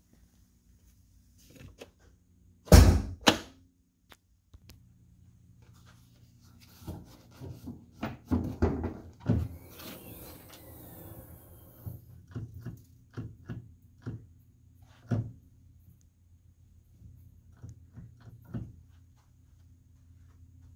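Hood release of a Kia Sorento: two loud thunks about three seconds in as the release is pulled and the hood latch lets go. Then a run of lighter metal knocks and clicks as the hood's safety catch is worked and the hood is raised.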